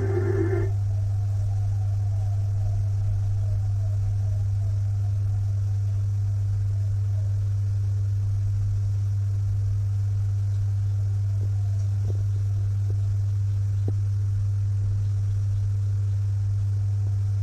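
A steady low hum throughout, with a few faint clicks about twelve and fourteen seconds in. A snatch of music from the TV's speaker cuts off about half a second in.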